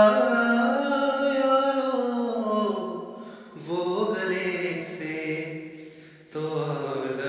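A man singing a ghazal unaccompanied, drawing out long held vowels with slow pitch glides. He sings three phrases, pausing briefly for breath about halfway through and again near the end.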